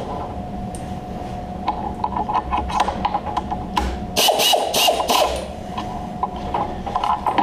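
Metal clicks and clinks of a carbide face-mill tool holder being handled and fitted up into a CNC milling machine's spindle, with a short burst of clattering about four seconds in. A steady hum runs underneath.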